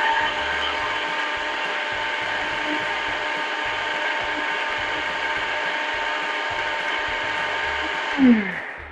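Bullet-style personal blender motor running steadily as it purees grilled corn and pasta water into a creamy sauce, then spinning down with a falling pitch about eight seconds in.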